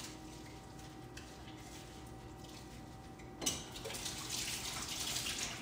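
Kitchen tap turned on a little over three seconds in, water running in a steady hiss.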